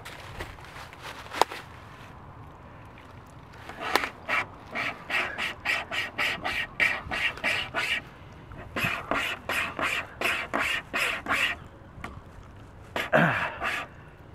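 Wire cable survival saw rasping through a dead tree limb, pulled back and forth in quick strokes of about three a second, in two runs with a short pause between and a last brief burst near the end. A single sharp click about a second and a half in.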